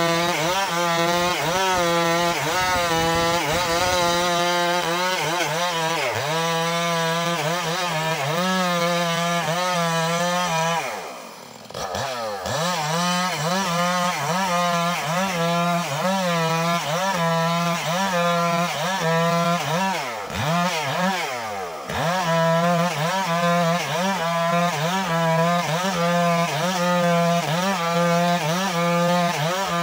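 Two-stroke petrol chainsaw ripping a suren log lengthwise, the engine running under load with its pitch wavering as the bar cuts. The revs fall away about 11 seconds in and climb back up, then dip briefly again around 20 seconds in.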